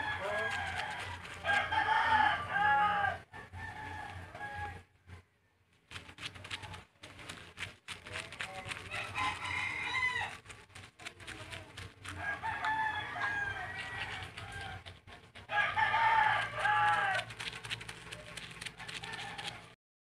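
A rooster crowing several times, each crow a pitched call that bends up and down.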